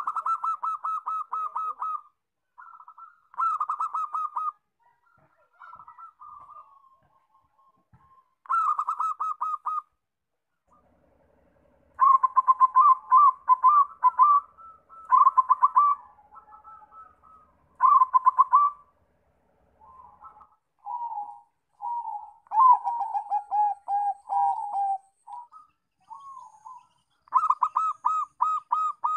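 Zebra doves cooing: repeated phrases of quick, staccato trilled coos, each a second or two long with short pauses between, a few phrases partway through pitched a little lower.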